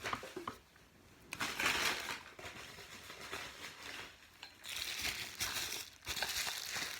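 Packing paper crumpling and rustling in two spells as it is pulled from around a piece of china, with a few light knocks.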